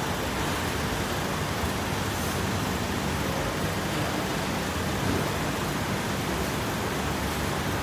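Steady, even rushing background noise with a faint low hum beneath it.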